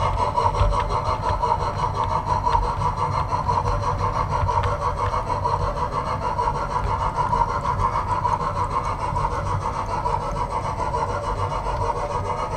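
OO gauge model train running past on the layout's track: a steady mechanical whirr of its running gear with a low rumble, holding an even level.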